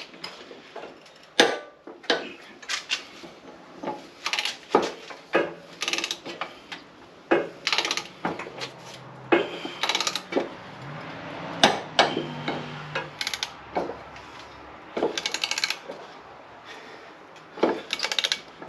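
Hand tools working on a zero-turn mower deck while the mulching blades are being fitted: irregular metal knocks and clanks, with a few short rattling runs.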